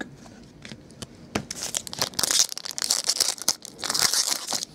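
A foil trading-card pack being torn open by hand, the wrapper crinkling with rapid crackles from about two seconds in, after a few light handling clicks.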